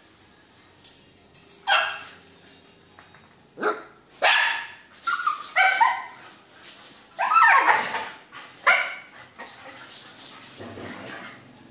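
Phu Quoc Ridgeback dogs barking and yelping in a string of about eight short, sharp calls, some falling in pitch, while the dogs scuffle and snap at each other. The calls die down to quieter sounds near the end.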